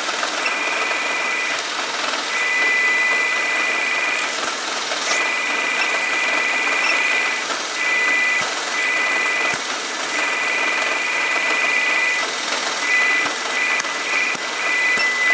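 Hyundai HB20's 1.0 Kappa three-cylinder engine running in fifth gear with a front wheel spinning free at about 60 km/h. Over it, a high-pitched whistle keeps cutting in and out every second or two: the strange noise the mechanic has never come across before.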